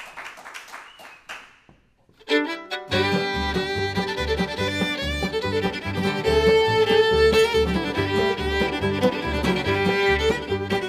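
The last of the applause dies away, then a fiddle starts a tune alone about two seconds in and, a moment later, an old-time string band joins it: open-back banjo, acoustic guitar and upright bass keeping a steady beat under the fiddle lead.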